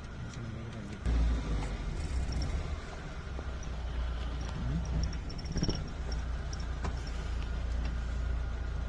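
Car engine running, heard from inside the cabin: a low rumble that steps up suddenly about a second in and then holds steady.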